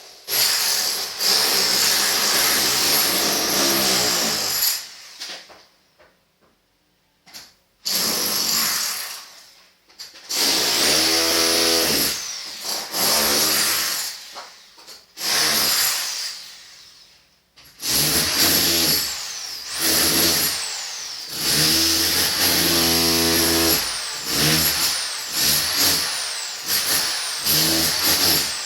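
Electric power tool running in repeated bursts a few seconds long, its motor winding up in pitch at each start and whining down as it stops.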